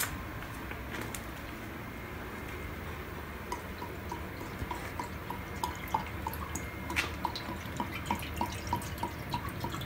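Antifreeze being poured from a plastic jug into a car radiator's filler neck. From about three and a half seconds in, the jug glugs steadily, about three gulps a second, as air bubbles back into it.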